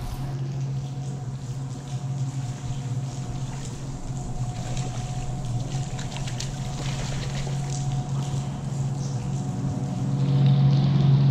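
A boat motor running steadily with a low, even hum that grows louder near the end, with light splashing and ticks as a crappie is drawn into a landing net.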